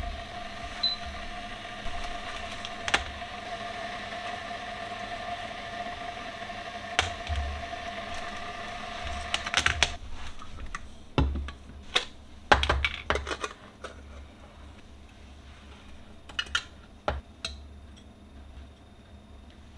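Kitchen handling sounds on a countertop: a steady hum with a high hiss that stops about halfway, then a quick run of clicks, knocks and light thuds as a can of ground coffee is opened and its foil seal peeled back.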